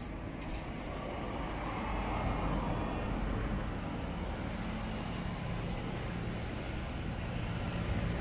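Forge blower running, a steady rush of air with a low hum that grows louder about two seconds in.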